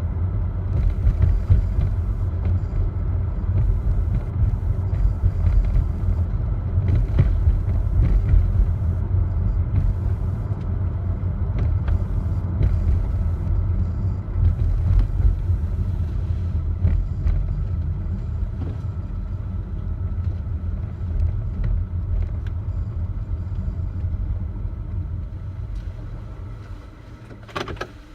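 Ford Flex driving slowly over a bumpy road, heard from inside the glovebox: a steady low road and tyre rumble with short buzzing rattles as the car goes over bumps, like a shaken incandescent bulb with a broken filament. The rumble eases off near the end, leaving a few sharp clicks.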